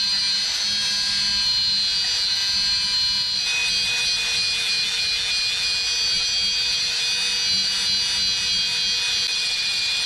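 Angle grinder's abrasive disc grinding into an 8 mm stainless steel rod: a steady high whine over a gritty hiss, its pitch shifting slightly about three and a half seconds in as the pressure on the cut changes.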